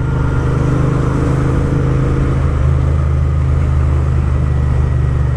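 Royal Enfield Interceptor 650's parallel-twin engine running through loud aftermarket Gursewak exhausts while the bike cruises at a steady engine speed, a deep even exhaust note with road and wind noise over it.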